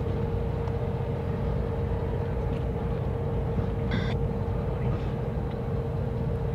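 Slow-moving CSX freight train with diesel locomotives: a steady low rumble with a constant hum. A brief high-pitched note sounds about four seconds in.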